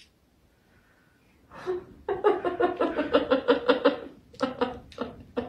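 A person laughing in quick, rhythmic bursts, starting about a second and a half in after a near-silent start.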